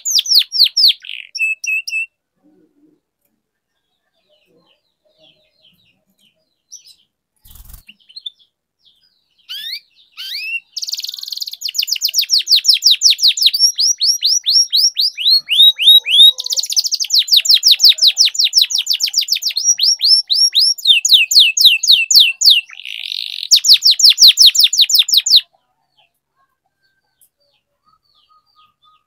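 Domestic canary singing in rapid high trills. A phrase ends about two seconds in, then after a long pause a long, unbroken run of trilled phrases starts about ten seconds in and stops suddenly a few seconds before the end.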